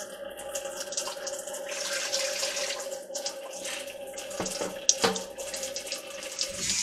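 Broth sloshing and splashing as a spoon stirs chicken and water in a stainless steel stockpot, with a few sharp clinks of the spoon against the pot about four to five seconds in. A steady hum runs underneath.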